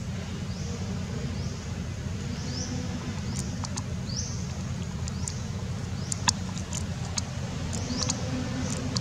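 Outdoor ambience: a steady low rumble under a short, high, rising chirp that repeats roughly once a second, with scattered light ticks from about three seconds in.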